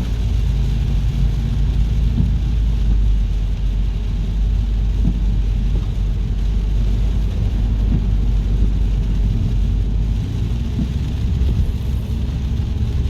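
Car driving, a steady low road and engine rumble with tyre hiss heard from inside the cabin.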